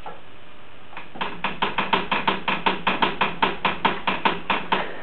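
Rapid, even wooden knocking, about five or six knocks a second, starting about a second in: a baby shaking and banging the spindles of a wooden stair banister.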